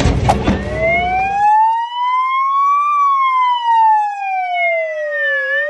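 Wailing siren sound effect sliding slowly up in pitch for about two and a half seconds, then down for about as long, then starting to rise again. At the start the rear-loading garbage truck's machinery is running, and it cuts off about a second and a half in.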